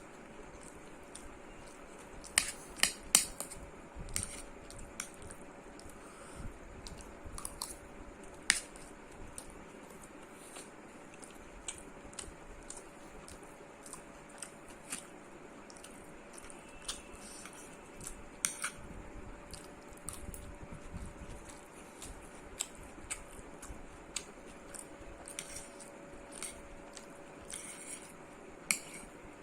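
A person eating chicken fried rice and kabab: chewing, with scattered sharp clicks and taps, the loudest a cluster about two to three seconds in and single ones near the middle and the end. A faint steady hum runs underneath.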